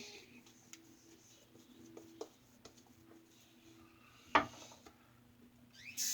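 Quiet handling clicks and taps, with one sharp knock about four seconds in; a water tap starts running at the very end.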